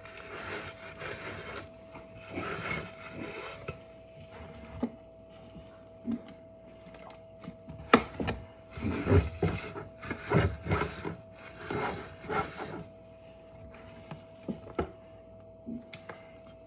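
A stick of butter rubbed by hand around a metal muffin tin to grease it, a rough scraping rub in short strokes. About eight seconds in, a sharp knock starts a spell of knocks and rustling as a plastic oil bottle is picked up and handled, with a few small clicks after. A faint steady tone runs underneath.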